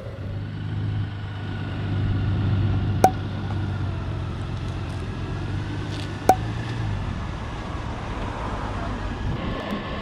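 Honda Gold Wing DCT's flat-six engine running slowly while the motorcycle is backed into place with its reverse function, a steady low hum that fades about seven seconds in. Two sharp clicks, about 3 and 6 seconds in.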